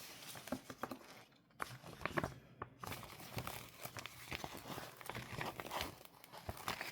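Plastic-wrapped sticker packs and tape rolls crinkling and rustling as they are handled, in many short irregular crackles.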